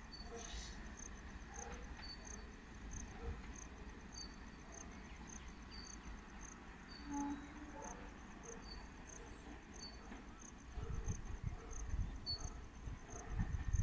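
Crickets chirping in a steady rhythm, about two chirps a second. A low rumble builds in the last few seconds as the DEMU train draws nearer.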